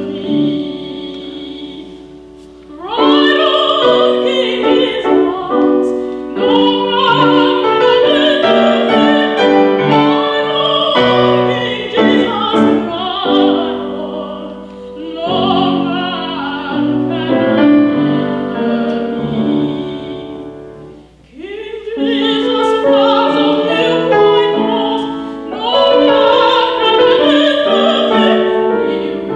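A female classical singer sings an operatic song with piano accompaniment, pausing briefly twice, about two seconds in and about twenty-one seconds in.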